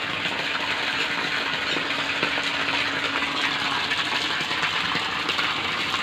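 Water pouring from a garden hose lodged up in a hedge and splashing steadily onto leaves and a pooled puddle below.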